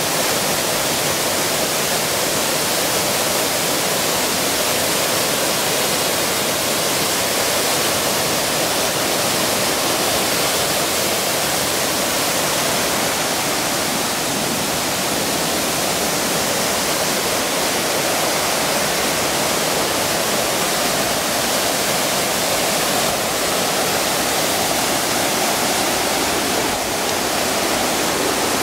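Water rushing steadily in a mountain stream, a loud, even, unbroken rush.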